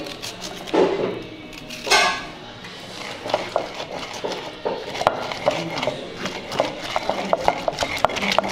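Wooden pestle grinding chilies, pea eggplants and onions in an earthenware grinding bowl (asanka): quick, rhythmic scraping strokes with sharp clicks, several a second, starting about three seconds in after a few louder knocks.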